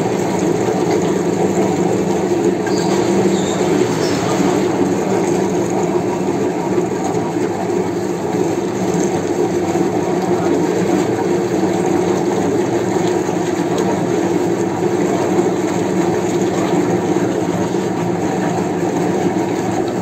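Old meat mincer machine running steadily while grinding meat, a continuous mechanical hum that does not change or break.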